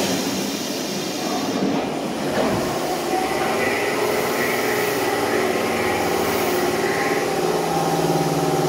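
Osaka Metro Sakaisuji Line subway train at the platform: an even rumble, joined from about three seconds in by a steady electrical hum of several tones.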